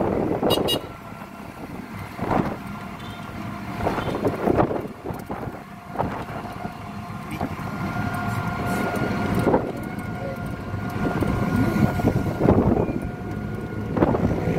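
Traffic and road noise heard from a moving e-bike, rising and falling in irregular surges, with wind gusting on the microphone. A faint steady high whine runs through most of it, starting about two seconds in and stopping near the end.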